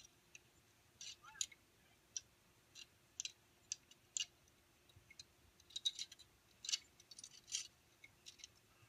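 Faint, irregular sharp clicks and light clinks, a few a second, bunching together about two-thirds of the way in.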